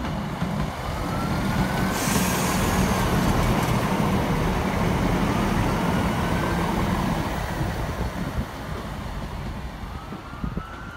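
CrossCountry Class 170 Turbostar diesel multiple unit running past as it comes into the platform: a steady engine hum and wheel-on-rail noise, with a hiss starting about two seconds in and faint squealing tones that glide up and down in pitch. It is loudest as the train passes and fades as it moves away near the end.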